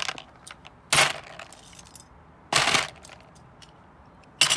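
Pieces of scrap metal from a dismantled microwave clattering as they are set down, three short bursts about a second and a half apart.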